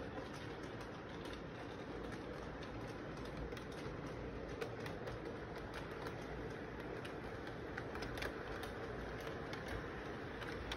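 Electric model train running steadily on its track, with a continuous rolling hum and irregular light clicks as the wheels pass over the rail joints.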